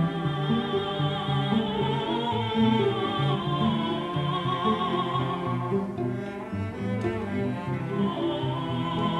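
Classical background music: low bowed strings such as cello hold sustained notes under a high melody with strong vibrato. The high line drops out a little past halfway and comes back near the end.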